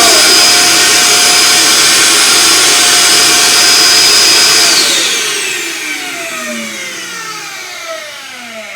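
Robot vacuum's self-empty docking station running its suction motor with a loud steady whine, then switching off and spinning down with a falling pitch about five seconds in. The station had been flooded and cleaned, and its owner says it now sounds different.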